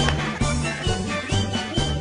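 Cheerful instrumental background music with a bouncy, steady beat.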